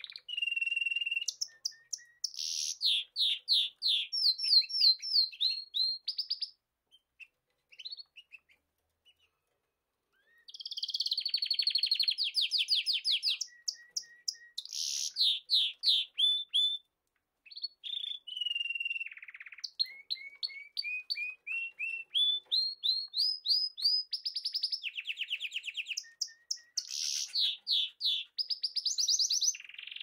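Budgerigars singing: runs of rapid, repeated chirps and trilling chatter. The singing pauses for a few seconds about a quarter of the way through, then picks up again.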